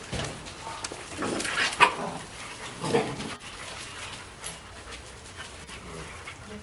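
Two-month-old Doberman puppies giving short barks and yelps while they play, the loudest about two and three seconds in.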